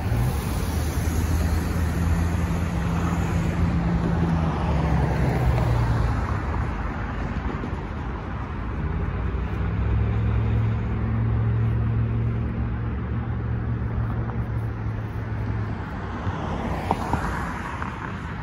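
Road traffic: cars driving across a railroad crossing, with engine hum and tyre noise going by. A car passes close near the end.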